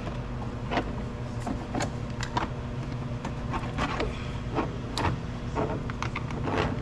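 A screwdriver prying at a plastic piece of a car's door trim to unplug its wiring, making a series of scattered light clicks and ticks over a steady low hum.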